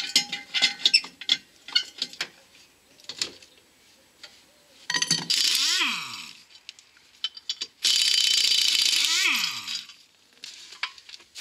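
Pneumatic impact wrench loosening a Peugeot 206's wheel bolts in two bursts of a second and a half to two seconds each, a few seconds apart, its motor falling in pitch as it spins down after each burst. Light metallic clicks and taps in the first few seconds.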